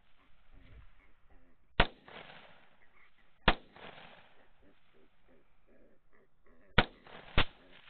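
Four rifle shots fired at running feral hogs, each a sharp crack with a short echo trailing off: two about a second and a half apart near the start, then two close together about half a second apart near the end.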